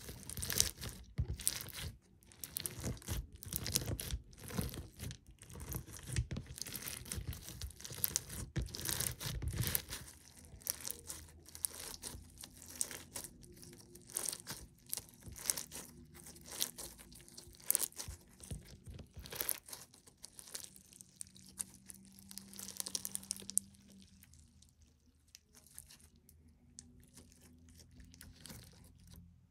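Clear slime packed with perler beads being squeezed and pinched by hand, the beads crunching in a dense run of small clicks and crackles. The crunching is densest and loudest over the first ten seconds, thins out after that, and is faint over the last few seconds.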